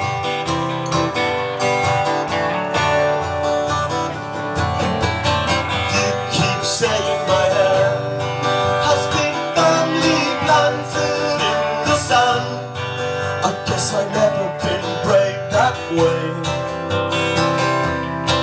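Two acoustic guitars playing a song's instrumental intro with regular strummed chords.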